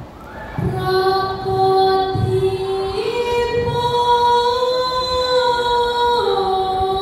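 A girl singing a Javanese macapat verse (tembang macapat) solo into a handheld microphone, in long held notes. After a short breath she sustains one note, steps up to a higher one about three seconds in, and slides back down near the end.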